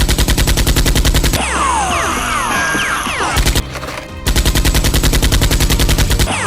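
Rapid automatic gunfire sound effect dubbed over a Nerf blaster fight: two long bursts of fast, evenly spaced shots, with a brief burst between them.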